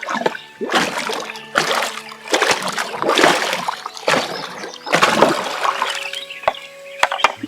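Water splashing and sloshing in about six strokes, roughly one a second, as something is worked by hand in water.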